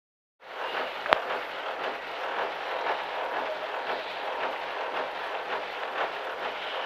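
Rally car's engine idling, heard from inside the cabin as a steady rumble and hiss, with one sharp click about a second in.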